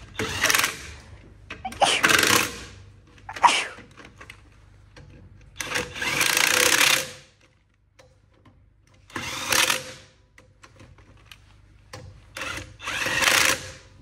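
Cordless drill spinning lug nuts on a car's steel wheel through a socket extension, in about six short runs with pauses between them.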